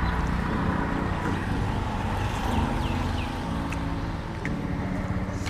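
A motor vehicle's engine running steadily, a low even hum, with a few faint high chirps about halfway through.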